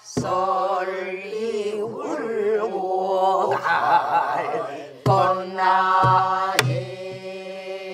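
A group singing a Korean Namdo folk song in unison, holding long notes with wide, wavering vibrato in the traditional style. They are accompanied by buk barrel drums, with a few sharp strokes and low thuds about five to seven seconds in.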